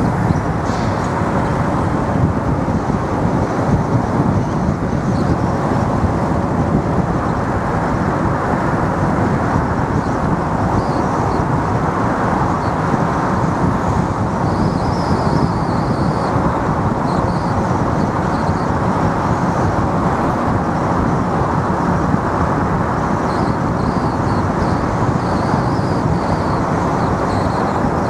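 Steady road and engine noise of a car being driven, heard from inside the car.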